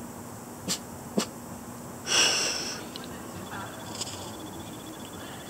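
A dog snorts once, a short breathy huff about two seconds in, the loudest sound here. Just before it come two sharp clicks.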